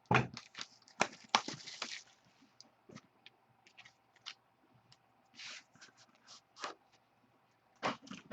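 A trading-card hobby box being unwrapped and opened: a knock, then about a second of crinkling and tearing of the wrapping, followed by scattered light clicks and rustles of cardboard and packs being handled.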